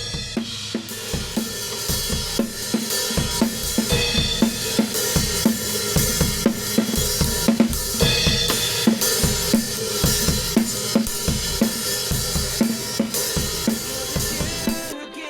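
Acoustic drum kit played in a steady groove: kick, snare, hi-hat and cymbals, as picked up by the Insta360 GO Ultra camera's built-in microphone. The playing stops near the end.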